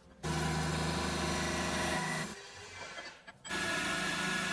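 Milling machine running, its spindle-mounted cutter machining along the edge of a metal bar: a steady mechanical hum with a hiss of cutting. The sound drops away twice, briefly at the very start and for about a second past the middle.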